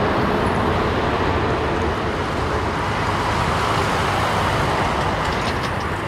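Jet engine noise from a Boeing 777-300ER's GE90 turbofans as the airliner flares and touches down on the runway: a loud, steady rush that eases slightly toward the end.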